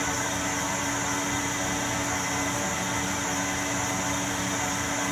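Harrison Alpha 400T CNC lathe running with its spindle turning aluminium bar in a three-jaw chuck while the tool takes a cut under automatic feed: a steady machine hum with a constant high tone above it.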